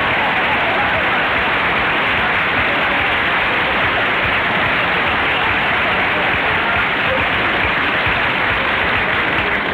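Studio audience laughing and applauding at a gag in a long, even wave of noise that begins to fade near the end, heard through the narrow sound of an old radio transcription.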